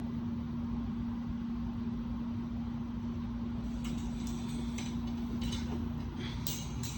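A steady machine hum with one constant pitch over a low rumble. From about four seconds in it is joined by a few light clicks and clinks, as of tools being handled.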